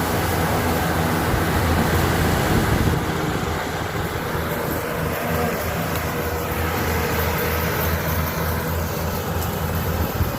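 Engine of a rice harvesting machine running steadily, a low hum with a rushing noise above it.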